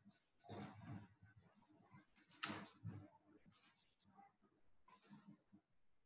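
Near silence: faint room tone with a few scattered soft clicks, the loudest about two and a half seconds in.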